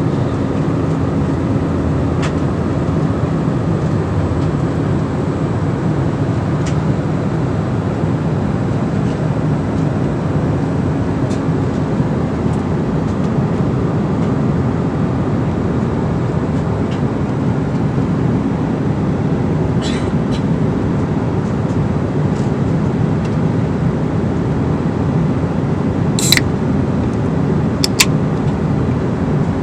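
Steady cabin drone of an Embraer E190 jet airliner in flight: engine and airflow noise heard from a seat inside the cabin. A couple of sharp clicks stand out near the end.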